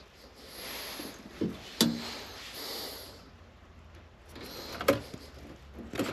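Hands working on wiring and tools inside an air handler: a few light clicks and knocks, with soft breathy hissing close to the microphone between them.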